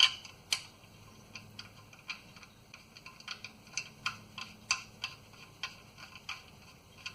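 Irregular light clicks and ticks, about two a second, as the oil drain plug is threaded back into the oil pan by hand and tool; the sharpest click comes right at the start.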